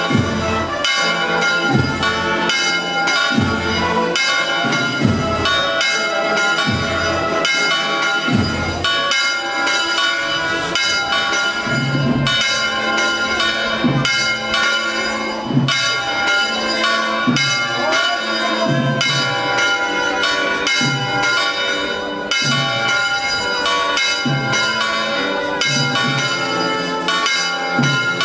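Church bells pealing, struck repeatedly about once a second, their tones ringing on and overlapping.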